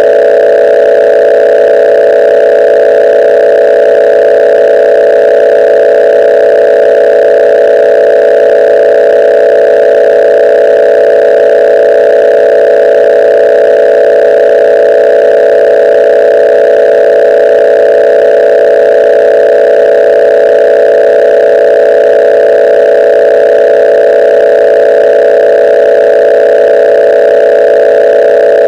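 A loud, steady electronic tone made of several close pitches in the middle range, held without any change, like a dial tone or drone.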